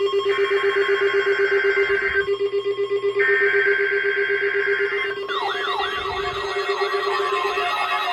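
Electronic alarm tones: a rapidly pulsing low tone under higher tones that switch on and off twice. About five seconds in, a warbling siren joins, sweeping up and down a few times a second.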